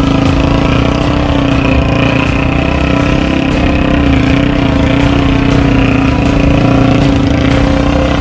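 Three-wheeled motorcycle with a Yamaha MX single-cylinder engine running steadily under way, a constant engine note with a slight waver.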